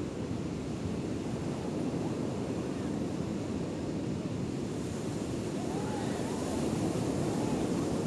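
Ocean surf breaking and washing up a beach, with wind rumbling on the microphone; the wash grows louder and hissier about five seconds in. Faint distant voices of people in the water come through near the end.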